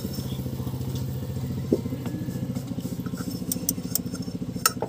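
An engine idling with an even, rapid beat, and a couple of sharp metallic clicks near the end.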